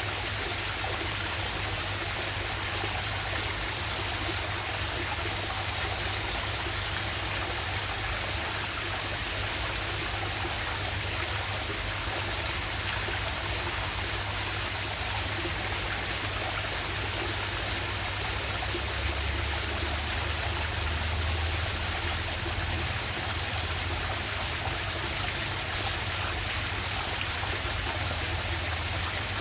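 Waterfall and stream water rushing steadily and evenly, with a low rumble that swells for a few seconds past the middle.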